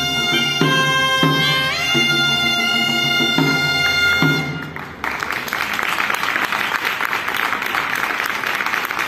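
Sac de gemecs (Catalan bagpipes) with a pipe and small drum playing the last bars of a tune, the drum beating steadily under the held pipe notes, ending on a final note that dies away about four and a half seconds in. About a second later the audience breaks into applause, which carries on to the end.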